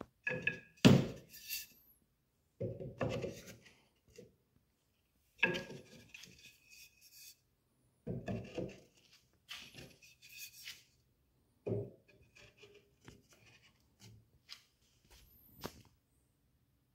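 Wooden dowel rungs being pushed and twisted into drilled holes in a wooden ladder rail: a series of separate wooden thunks and rubs every second or two, some with a short squeak as a dowel grinds in its hole.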